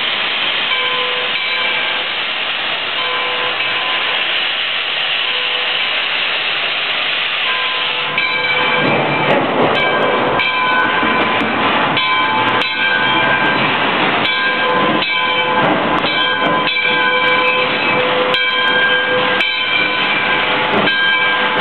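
1920 American Locomotive Company 2-8-0 steam locomotive hissing steadily with steam. About eight seconds in it starts working, and its exhaust chuffs about every half second over the continuing hiss.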